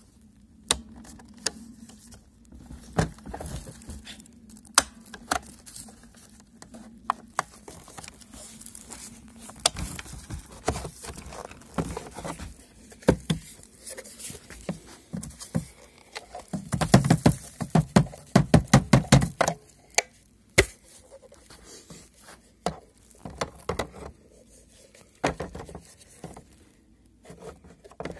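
Irregular sharp clicks and knocks, with a quick rattling run of ticks a little past the middle.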